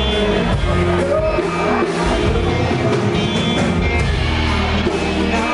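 Live band playing loud rock-style music with a singer.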